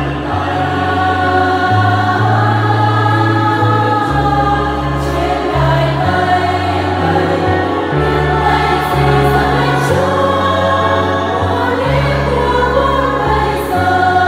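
A church choir singing a Catholic hymn in Vietnamese, many voices together, over held low bass notes that change every second or two.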